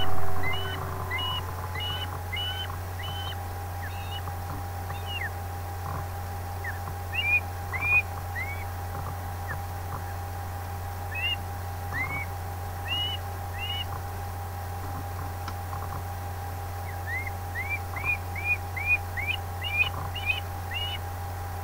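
Ospreys calling: short, high whistled calls in loose series, coming quicker near the end, over a steady hum.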